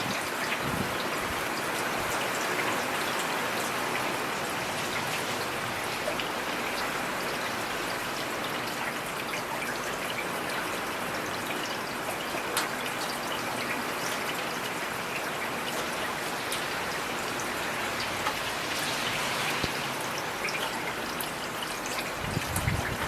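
Heavy rain falling steadily: a dense, even hiss with scattered sharper drop ticks. A short low rumble comes near the end.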